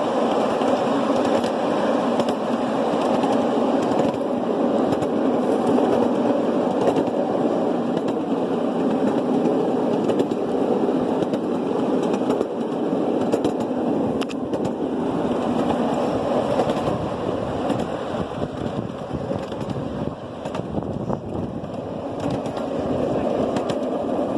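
An open rail car rolling along the track: a steady rumbling rattle of wheels on rail with frequent small clicks, easing off somewhat near the end.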